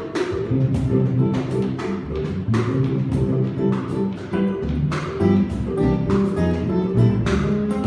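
A small live band playing a Cuban song: an acoustic guitar over an upright bass, with cajón strokes marking the beat.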